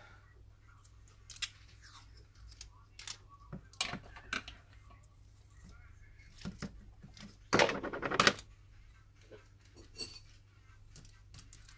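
Light clicks and taps from hands handling small tablet parts and adhesive tape during reassembly, with one short louder noisy burst about two-thirds of the way through.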